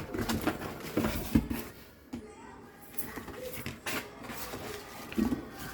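Irregular knocks, taps and short scrapes of objects being handled, several times at uneven intervals.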